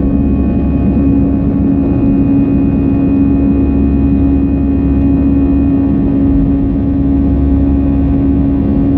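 Airbus A320's CFM56 turbofan engines at takeoff thrust, heard inside the cabin over the wing. A loud, steady drone with a strong low hum tone and deep rumble runs through liftoff and the first seconds of climb.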